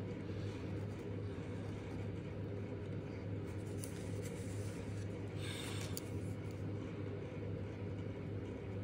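Gel pen tip scratching lightly on black card, over a steady low hum. A short rustle of card about five and a half seconds in.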